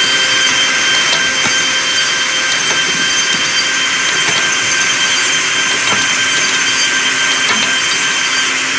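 High-speed four-sided wood moulder running steadily, a high whine over a loud hiss, as its feed rollers drive a wooden board through.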